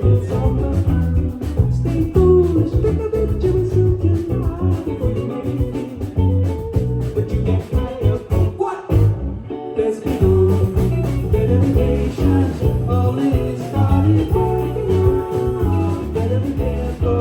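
Live band playing a song with guitar, bass and drums, with a brief break about nine seconds in before the band comes back in.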